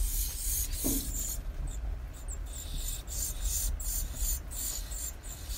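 Ryukyu robin nestlings calling in the nest: a run of short, high, hissy calls with brief gaps between them, over a low steady rumble.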